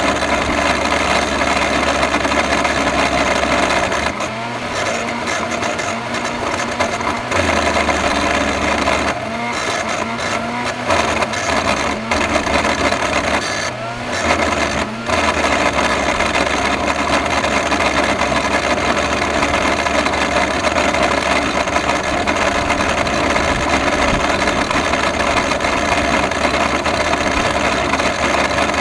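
Electrolux vacuum cleaner with a bad motor running continuously with a steady mechanical drone. Its sound dips and changes several times between about 4 and 15 seconds in, then runs steadily again.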